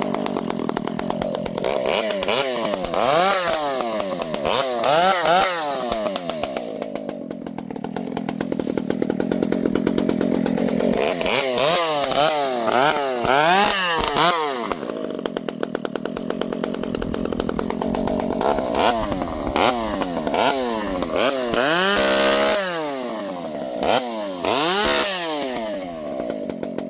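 Dolmar two-stroke chainsaw revving up and down in repeated sweeps, dropping back to a steadier, lower run between them.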